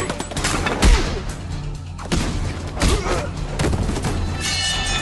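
Action-film sound effects over a music score: several heavy thuds and booms, the loudest about a second in.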